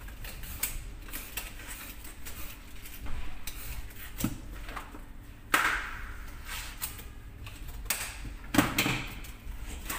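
Eggplants and kitchen utensils handled in plastic basins: scattered light clicks, taps and knocks, with a louder knock about halfway through and another near the end.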